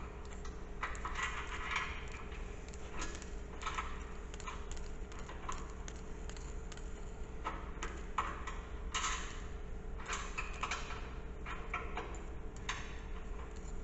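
Ratchet wrench clicking in short, irregular spells as bolts are worked on the plow mount, with a faint steady hum underneath.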